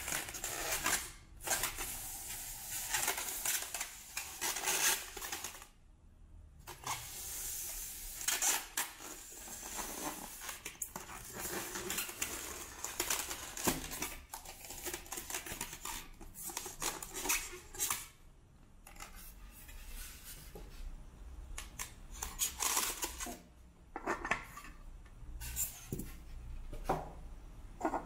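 Polystyrene foam packaging being handled and pulled apart: irregular rubbing, scraping and creaking of the foam, with light knocks and clinks as the dome clock is lifted out and handled.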